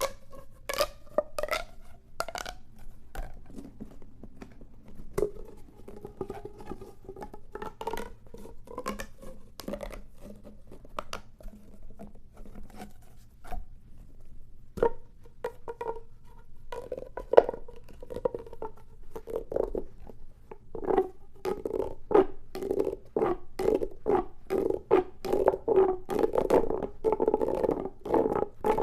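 Plastic pop tubes being stretched and squashed: irregular crackly clicks of the ribs snapping open and shut, over a hollow ringing tone. The clicking grows busier and louder in the second half.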